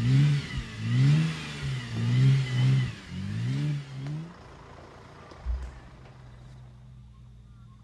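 Holden Rodeo ute's engine revving hard in about five rising-and-falling surges as its wheels spin in wet grass and mud. The revving stops about four seconds in, leaving a low steady hum and one thump.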